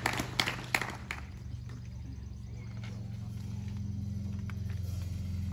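Audience applause dying away within the first second, followed by a steady low hum that slowly grows louder.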